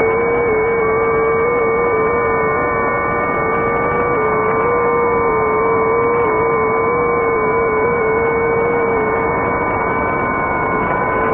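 Unidentified signals on a shortwave receiver tuned to 3572/3573 kHz in upper sideband: several steady whistle-like tones over static hiss. The lowest tone is the loudest and wavers slightly in pitch, and nothing comes through above about 4 kHz because of the receiver's narrow sideband passband.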